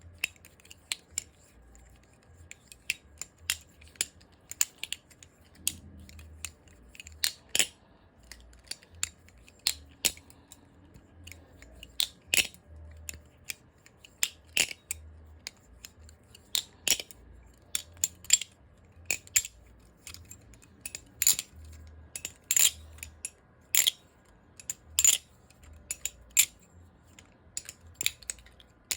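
Balisong (butterfly knife) being flipped: sharp metallic clicks and clacks as the handles and blade swing around and strike each other, coming irregularly about one or two a second, some much louder than others.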